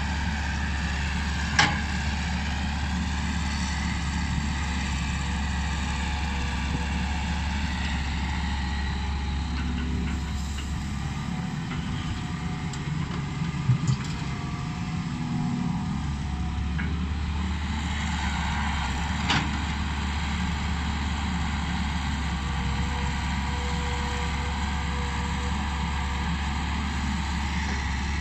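Hitachi EX120 hydraulic excavator's diesel engine running steadily as the machine works, with a few sharp knocks: one a couple of seconds in, one about halfway, and one about two-thirds through.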